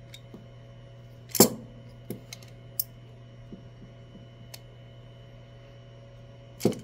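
Parallel-jaw pliers squeezing a 3D-printed plastic tool tag to press small neodymium magnets into its holes: a few sharp clicks, the loudest about a second and a half in and another just before the end, over a faint steady hum.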